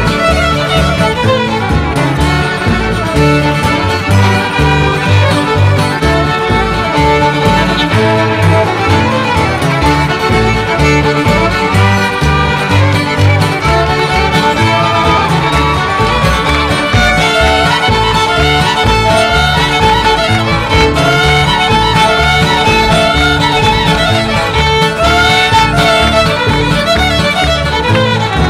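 Old-time string band music: fiddles playing a tune together over acoustic guitar and upright bass, with the bass keeping a steady beat.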